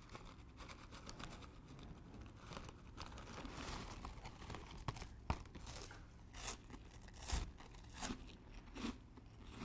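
Plastic snack bag crinkling faintly as the last crumbs are shaken out of it into the mouth, with several sharp crackles of the bag in the second half.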